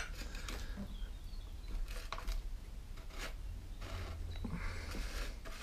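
Faint, scattered clicks and scrapes of a Homelite chainsaw's chain brake mechanism being worked by hand, plastic and metal parts rubbing; the brake is still binding instead of moving freely.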